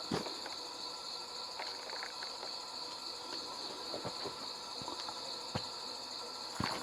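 Steady high-pitched chirring of night insects, with a few scattered footsteps on a mountain trail.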